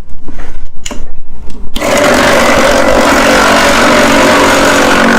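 Electric snow-ice shaving machine starting up abruptly about two seconds in and then running steadily with a loud motor whir and hiss. A few short knocks and handling sounds come before it.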